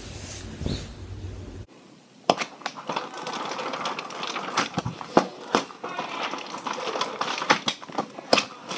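Paper rustling with many irregular sharp clicks and taps from handling a lined notebook. Before it, a low hum cuts off about two seconds in.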